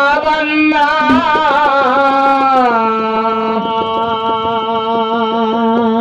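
Kannada dollina pada folk song: a long ornamented sung note that wavers in pitch, settling about halfway through into a steady held tone, over quick, even hand-drum taps.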